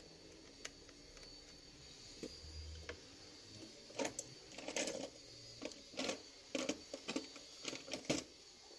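Hand tools clicking and scraping on a laptop's plastic casing as the back cover is worked loose. There are a few single clicks at first, then a close run of sharp clicks from about four seconds in to just past eight seconds.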